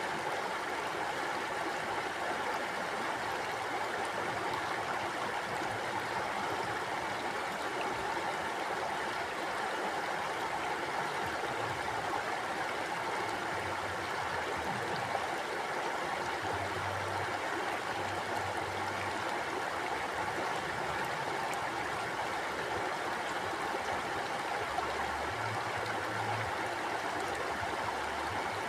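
A flowing stream: a steady, even rush of running water.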